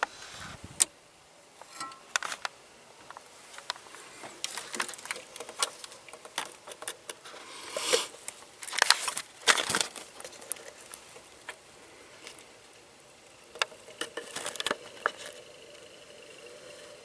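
Scattered metallic clinks and clanks of tools and engine parts being handled on a workbench, with a cluster of louder knocks about eight to ten seconds in.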